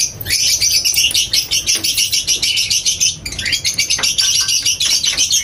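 A flock of small caged birds chirping and chattering in a dense, rapid, continuous stream of short high calls.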